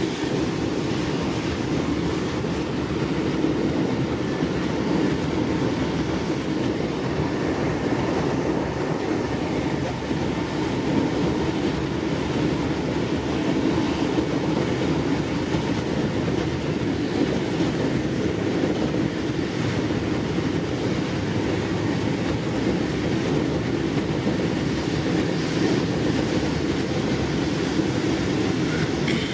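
Steady rolling noise of an n-Wagen passenger coach running on the rails behind a class 185 electric locomotive, heard from aboard the moving train.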